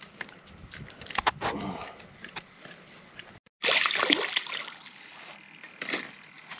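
A small hooked fish splashing at the water's surface as it is reeled in to the bank, loudest about four seconds in.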